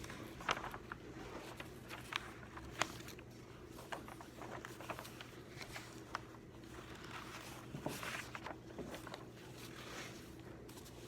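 Quiet desk-study sounds: irregular small clicks, taps and rustles of pens, paper and stationery being handled, over a steady low room hum.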